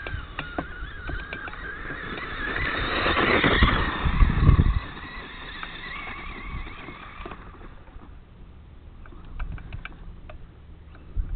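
Dirt bike engine revving up and down in pitch as the bike rides around the track, growing louder to a peak about three to four seconds in, then fading away by about seven seconds in. Wind buffets the microphone with low rumbles.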